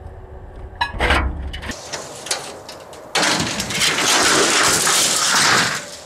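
Microwave oven running with burning napalm and metal inside, its glass cracking from the heat in sharp snaps over a low steady hum. About three seconds in, a loud steady rushing noise takes over and stops just before the end.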